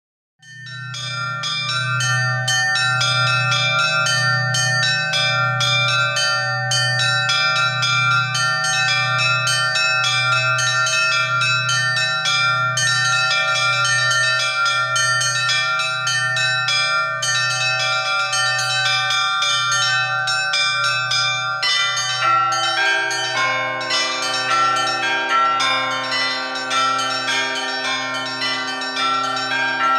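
Russian Orthodox church bells rung in a full peal (zvon), starting about half a second in. A large low bell is struck steadily about once a second under quick patterns on the small treble bells. About two-thirds of the way through, the middle bells join in and the ringing grows fuller.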